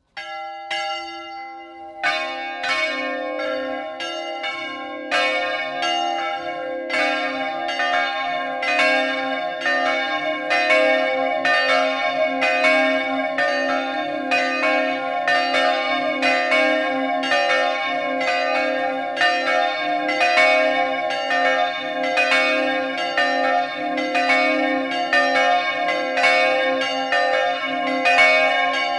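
A peal of three De Poli bronze church bells, tuned to a major scale from C4 and swung electrically in the Friulian manner. The bells start swinging: a single strike opens, the other bells join about two and five seconds in, and then all three ring together in a fast, continuous peal.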